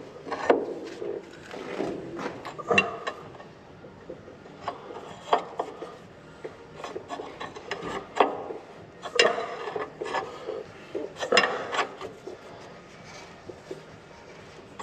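Wrench turning the centre bolt of a crankshaft seal installer in repeated strokes: metal clicks and short scrapes every second or two as the new crankshaft seal is drawn into its housing.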